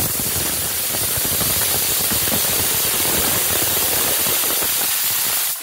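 Aluminium stovetop pressure cooker whistling: steam hissing out past the weight valve with a fast fluttering rattle. This is its first whistle, the sign that full pressure has been reached. It cuts off suddenly near the end.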